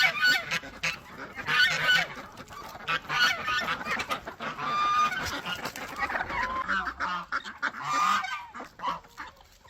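Geese honking, with repeated calls about once a second.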